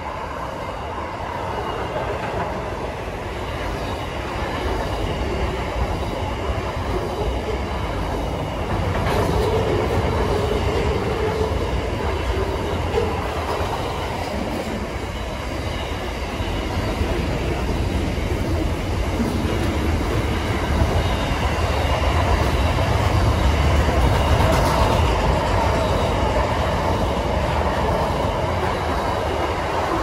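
Container wagons of a long intermodal freight train rolling past: a steady rumble and clatter of steel wheels on the rails.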